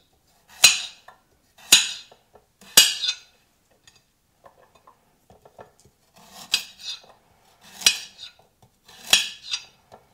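A chef's knife chopping carrot pieces, the blade striking a hard cutting board. Three chops about a second apart, a pause of about three seconds, then three more.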